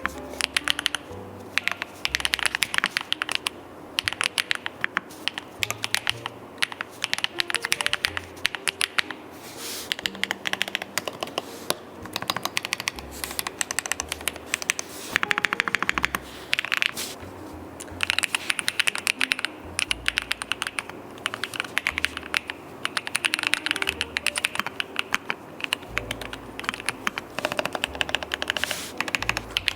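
Typing on a MASS80 keyboard: quick runs of keystrokes clicking and clacking, broken by short pauses.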